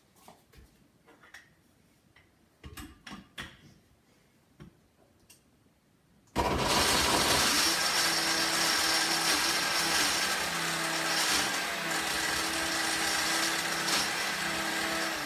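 A few faint clicks, then about six seconds in a KitchenAid countertop blender starts abruptly and runs steadily at full speed on chunks of apple, carrot and ginger with no liquid added. With too little liquid to draw the chopped pieces back down, its blade spins nearly free.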